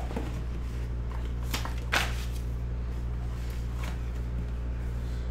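Hands opening a black cardboard box, its lid sliding and scraping off with a few light taps, the loudest about two seconds in, over a steady low hum.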